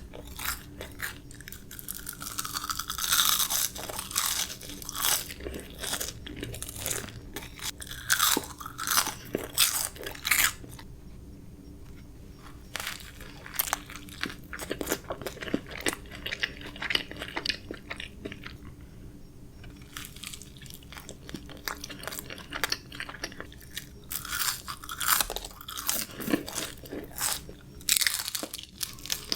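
A person chewing and crunching fast food close to the microphone: sharp, crisp bites and chewing come in runs, separated by short lulls.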